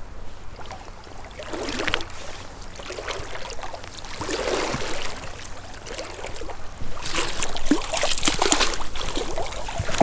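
Creek water splashing and sloshing as a hooked brown trout is drawn in and scooped into a landing net. The splashing grows louder and busier about seven seconds in.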